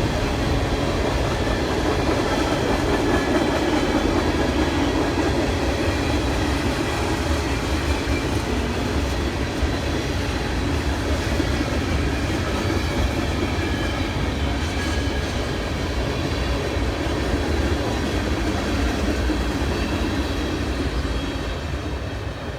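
Freight cars of a BNSF manifest train rolling past, steel wheels running on the rails in a steady, continuous rumble that eases slightly near the end.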